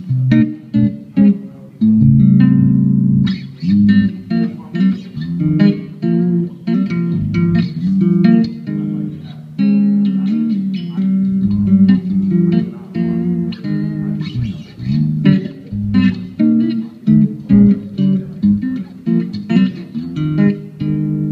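Solo electric bass guitar warming up, playing quick runs of plucked single notes that climb and fall, each with a sharp attack.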